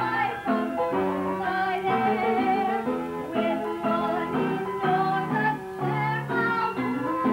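A woman singing a show tune over an instrumental accompaniment.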